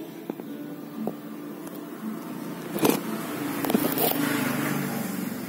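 Handling knocks and scrapes against a thin clear plastic cup, the loudest about three seconds in, with a few more just after. Under them is a steady low hum that swells in the middle and fades near the end.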